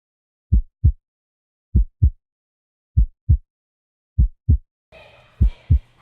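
Heartbeat sound effect: low double thumps, five beats evenly spaced about 1.2 seconds apart, slow like a resting heart, with silence between them.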